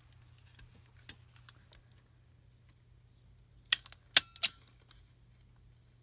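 A stapler snapping shut three times in quick succession, stapling a paper note pack together, with faint paper handling before it.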